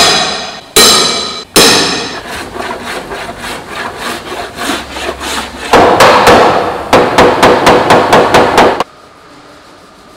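Hammering on a car's sheet-metal body panels during dent repair. Three loud ringing blows about a second apart, then lighter quicker taps, then a run of heavy strikes about three a second that stops abruptly near the end.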